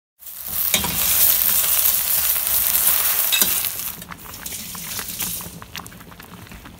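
Cooking sizzle: a loud hiss with a couple of sharp clinks for the first three and a half seconds or so, then a quieter bubbling with many small pops from misua and patola soup boiling in a steel pot.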